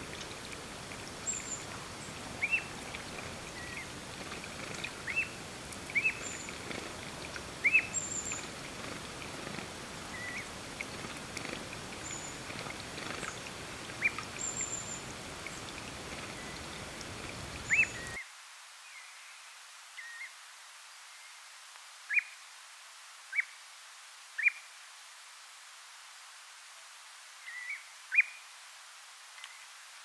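Common ringed plover giving short, clear whistled calls, many of them rising, repeated at irregular intervals, over a steady background hiss. The hiss drops away sharply about 18 seconds in while the calls go on.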